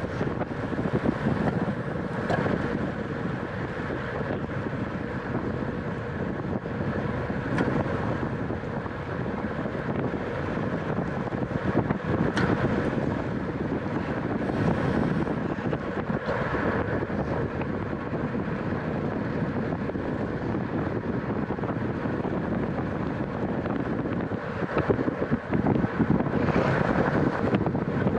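Wind rushing over the microphone of a camera riding along in a bicycle race, over steady rolling noise from the bike, with a few faint ticks.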